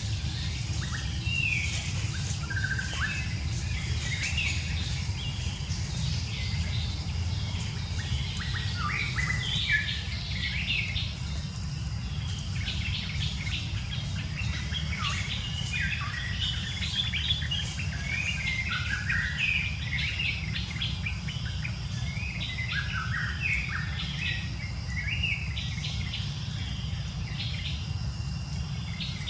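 Many short, high chirps and tweets of birds, overlapping throughout, over a steady low rumble.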